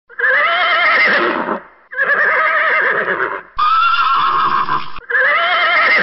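Horse neighing: four whinnies back to back, each about a second and a half long, with a wavering pitch.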